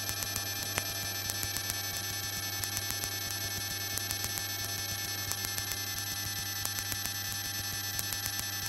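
Cockpit intercom noise in a Piper PA-38 Tomahawk with the engine running: a steady low hum and high whine with fast, regular ticking.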